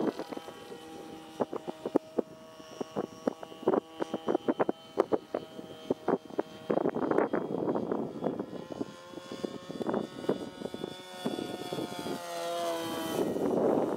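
Irvine 53 two-stroke nitro glow engine of a radio-controlled Sbach 342 aerobatic model plane in flight, its note shifting in pitch as it manoeuvres. Many short sharp clicks and a couple of spells of rushing noise lie over the engine sound.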